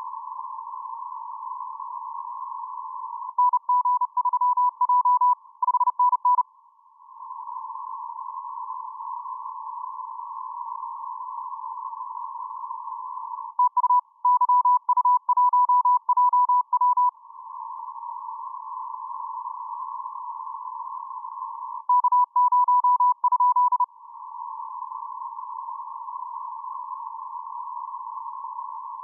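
Morse code (CW) received on the 10-metre amateur band through a narrow receiver filter: a steady hiss of band noise held to one pitch, broken three times by a few seconds of a loud beeping tone keyed on and off in dots and dashes.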